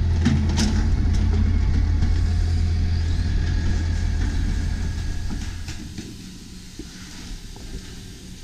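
A heavy engine running steadily with a deep hum, then dying away about six seconds in, leaving a quieter background with a few knocks.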